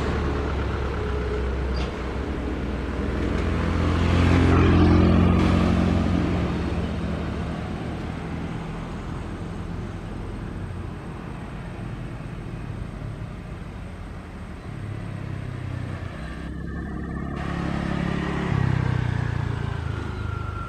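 Tour buses passing on a road. The engine sound swells and fades as one goes past about five seconds in, and again as another passes near the end.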